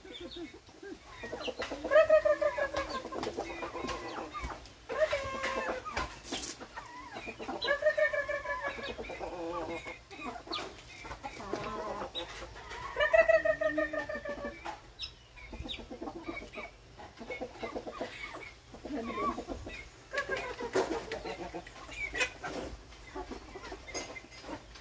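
A flock of chickens clucking and calling, with several drawn-out calls spread through.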